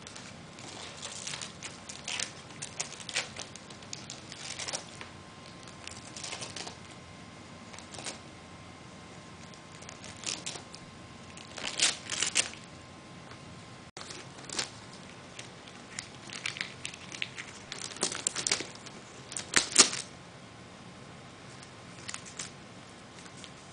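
Gift wrapping paper and ribbon crinkling and rustling in irregular bursts as a young tabby cat paws at the bow on a wrapped present. The loudest crackles come about halfway through and again a few seconds before the end.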